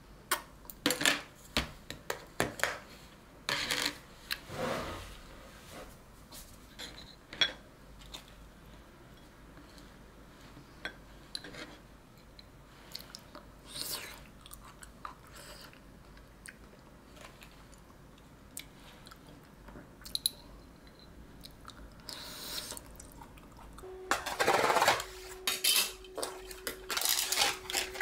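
Clinks and taps of a spoon on a glass cup and of small plastic containers set on a table, with quiet chewing of cereal, yogurt and blueberries. Near the end, crackling as the plastic film is peeled off a tray of mussels.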